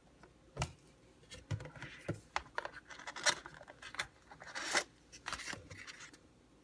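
Cardboard tea advent calendar being opened by hand: its front panel lifted and a small cardboard drawer and tea box pulled out. A string of cardboard scrapes, rubs and light clicks, loudest about three and nearly five seconds in.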